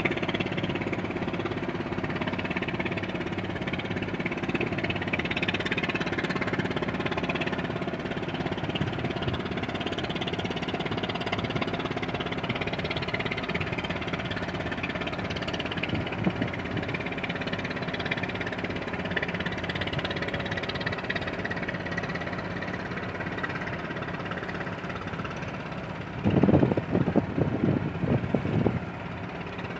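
Ship's engines running with a steady mechanical drone. A few louder, irregular low rumbles come near the end.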